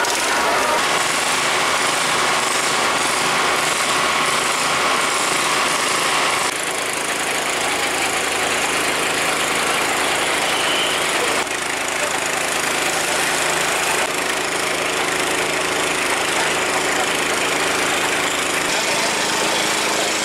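Fire truck engines running steadily, a constant drone with a broad hiss over it; the mix changes abruptly a few times.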